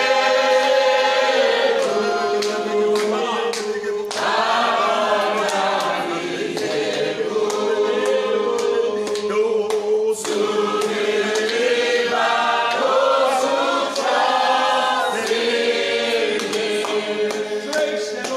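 Congregation of men and women singing a slow worship song together, unaccompanied, with long held notes and scattered hand claps.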